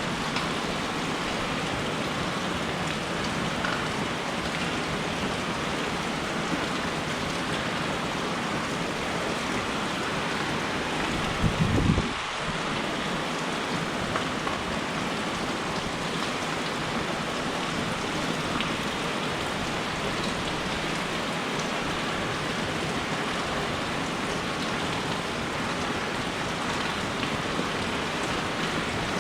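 Steady rain falling and pattering on surfaces, an even hiss throughout. Near the middle comes a single brief, low thump that stands out above the rain.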